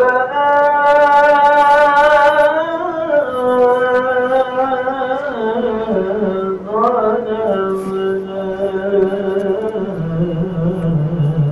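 A single voice chanting in long held notes, sliding between them with ornamented turns, the pitch stepping down in stages over the phrase.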